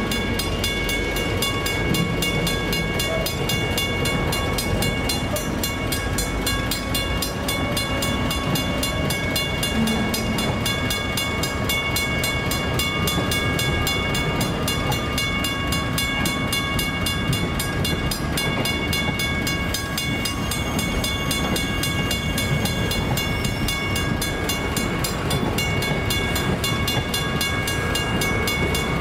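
Container wagons of an intermodal freight train rolling steadily past at speed, a continuous rumble of wheels on rail. Over it a level-crossing warning bell rings steadily.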